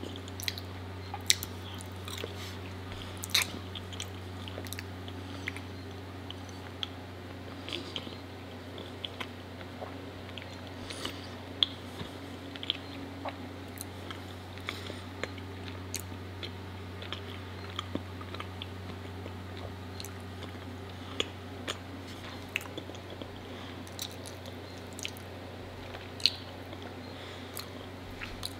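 Close-up chewing of raw honeycomb: sticky, wet mouth sounds with many short clicks and smacks scattered throughout.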